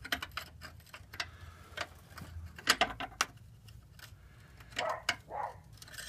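Hand wrench working a sway bar bushing bracket bolt: scattered, uneven metal clicks and taps, with a few more close together about three seconds in.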